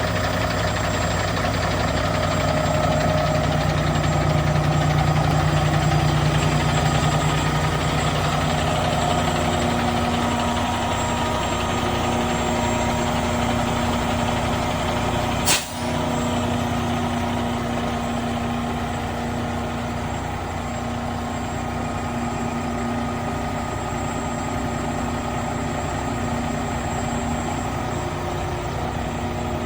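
Kenworth T880 mixer truck's Cummins ISX12 diesel engine running steadily. There is one sharp click about halfway through.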